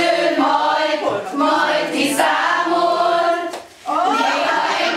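A group of women singing a song together, unaccompanied, with a brief break for breath about three and a half seconds in before the singing resumes.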